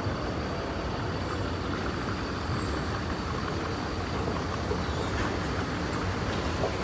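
Steady low rumble of a moving vehicle, with a faint high whine running through it.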